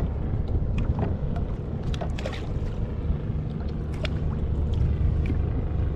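Wind buffeting the action-camera microphone and water lapping against the kayak's hull make a steady low rumble, with scattered light clicks and knocks and a faint steady hum underneath.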